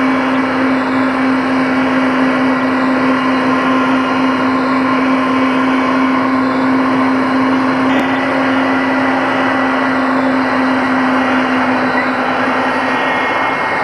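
Mi-8MTV-1 helicopter in flight, heard from on board: a loud, steady drone of turbines and rotor with a constant hum over a dense rush of noise.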